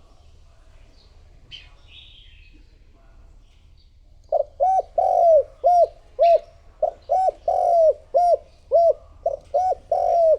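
Spotted dove cooing in a quick run of short, arched coos, about two a second, starting about four seconds in, some notes drawn out longer. A faint small chirp comes about two seconds in, before the cooing.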